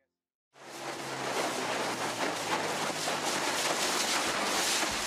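A moving boat: a steady low engine hum under a dense rush of wind on the microphone and water along the hull, cutting in suddenly about half a second in.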